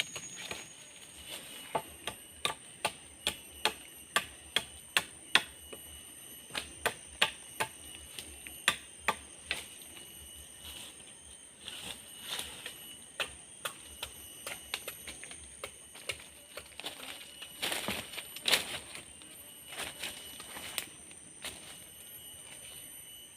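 Rapid chopping strokes of a blade biting into wood, about two or three a second in runs with pauses between, over a steady high-pitched insect drone.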